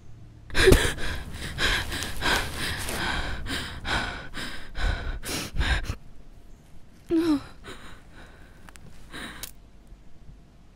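A young woman gasping and sobbing in quick, ragged breaths for about five seconds, then a short falling whimper and one last sharp breath.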